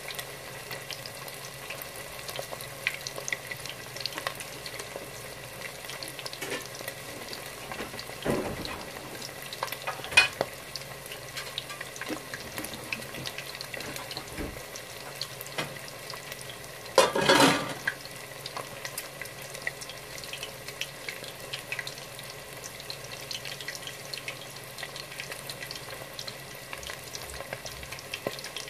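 Panko-breaded catfish pieces deep-frying in hot oil in a stainless steel pot: a steady sizzle full of fine crackles. There are a few louder bursts, the loudest a little past halfway.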